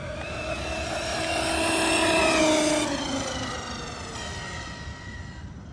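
Eachine EAT02 1/8-scale brushless RC monster truck on a high-speed run: its motor and gear whine, several tones at once, rises in pitch and grows louder to a peak about two and a half seconds in, then drops in pitch and fades as the truck speeds off into the distance.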